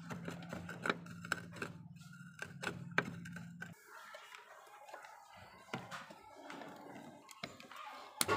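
Rusty steel hacksaw handle parts being handled and pulled apart on a wooden worktop: scattered small metal clicks and light knocks, with a sharper knock near the end. A low steady hum runs under it and stops a little under four seconds in.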